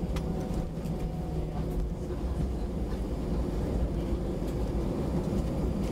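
Airbus A320 landing rollout heard from inside the cabin: a steady low rumble of the wheels on the runway and the engines as the jet decelerates with spoilers raised, with a few faint clicks and rattles.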